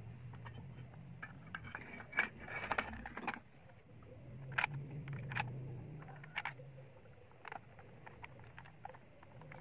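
Scattered clicks, taps and light scrapes of a circular saw's plastic motor housing and parts being handled and fitted during reassembly, busiest in the first half.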